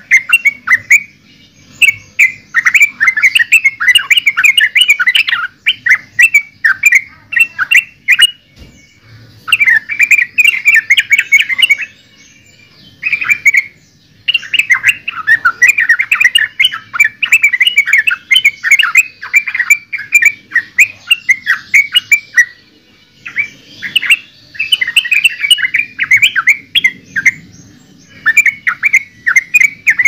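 Yellow-vented bulbul (trucukan) singing: rapid, bubbly chattering phrases of a few seconds each, separated by short pauses.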